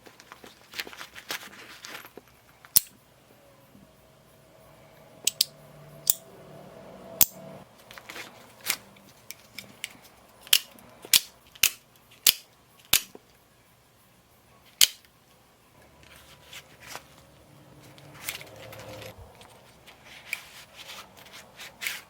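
Handling of an EDC pouch and gear: rustling with about a dozen sharp clicks and snaps at irregular intervals.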